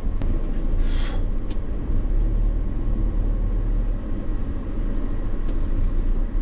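Steady low rumble of a vehicle on the move, road and engine noise, with a short hiss about a second in.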